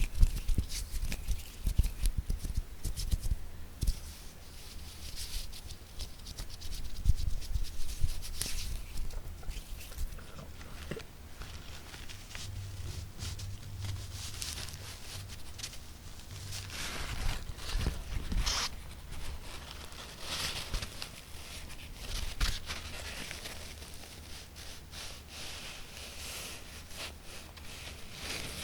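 Close-miked ASMR hand tapping: quick, irregular fingertip taps mixed with rubbing and scratching, coming in louder flurries.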